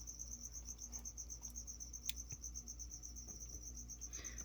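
A cricket chirping in a steady, rapid, high-pitched pulsing trill, about eight pulses a second, faint and unbroken.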